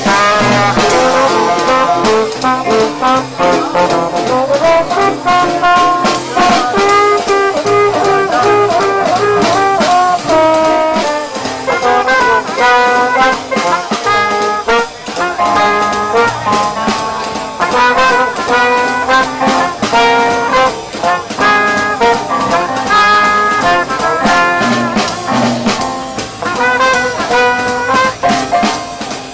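Trumpet and trombone playing a jazz tune together over a strummed ukulele, a small acoustic band playing live.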